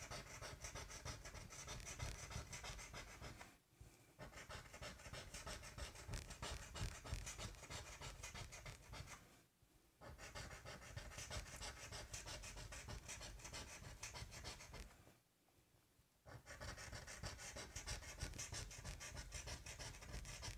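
Coin scratching the coating off a lottery scratch-off ticket in fast, faint back-and-forth strokes, stopping briefly three times.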